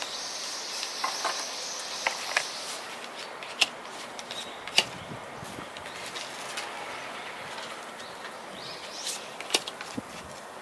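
Album contents (cards, paper inserts and packaging) being handled by hand: rustling, with scattered sharp taps and clicks.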